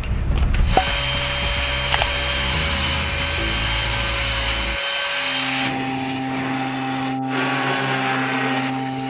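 Power saw cutting through the concrete step, running steadily with a hiss and a constant motor tone that shifts in pitch about halfway through.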